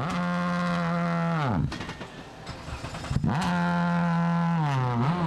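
World Rally Car's turbocharged four-cylinder engine held at high revs, its pitch dropping away twice as the throttle is lifted and picking up again in between, with a sharp crack at each drop.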